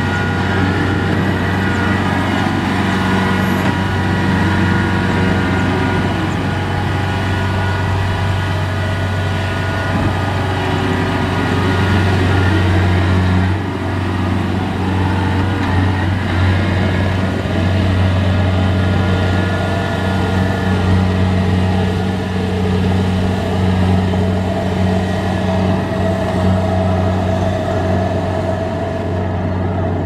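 Kubota DC-70 Plus rice combine harvester running steadily while harvesting: a constant low engine drone with steady whining tones above it.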